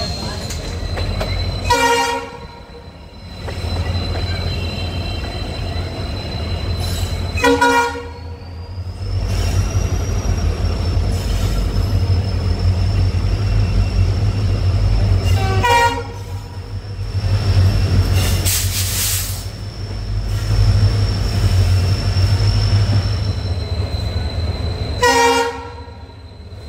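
Diesel locomotive horn sounding four short blasts several seconds apart, over the steady low rumble of the train's EMD WDP4B diesel locomotives and coaches running.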